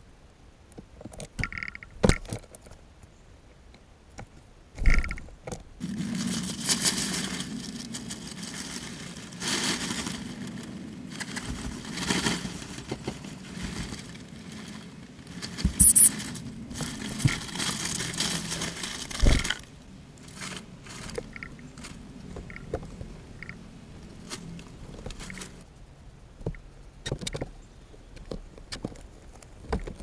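Dry rustling and scraping among seed husks and peanut shells, dense from about six seconds in until about nineteen seconds, with scattered clicks and taps before and after.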